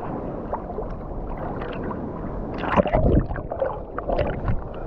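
Sea water splashing and sloshing close to the microphone, uneven, with a louder burst of splashing about three seconds in.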